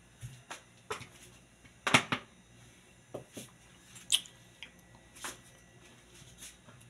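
Knife and peeled melon pieces knocking and scraping on a plastic cutting board: a string of separate short knocks, the loudest about two seconds in.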